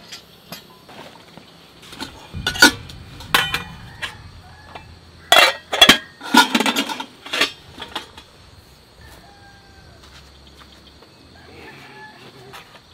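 Metal camping cookware clattering and clinking as a stainless steel kettle and a lidded cook pot are set on and handled around a portable gas stove, with several sharp knocks between about two and eight seconds in.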